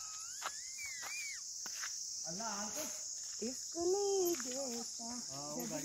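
Insects chirring steadily at a high pitch, with faint voices talking now and then.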